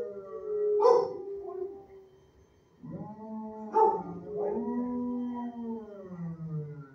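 Shelter dog howling in long drawn-out howls that slowly fall in pitch, with a sharp bark or yelp about a second in and again near four seconds, and a short lull around two seconds in.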